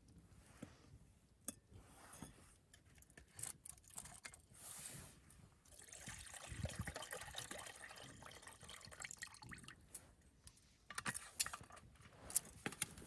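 Water poured from a canteen into a metal camping pot: a steady splashing pour lasting about four seconds, midway through. A few sharp clicks and knocks come before and after it.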